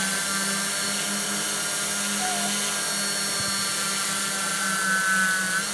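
JAF hexacopter's six Digitech X80 brushless motors and 11x5 e-props running steadily as it hovers in GPS loiter: a low propeller hum with a higher motor whine above it.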